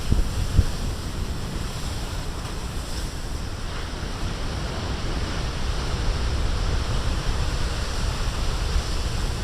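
Heavy storm surf breaking and washing against a rocky shore, a steady low rumble that swells a little partway through, with wind buffeting the microphone.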